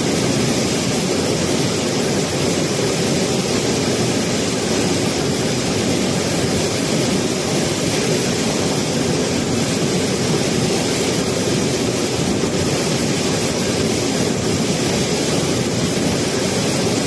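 A waterfall's falling water: a loud, steady rush that never breaks.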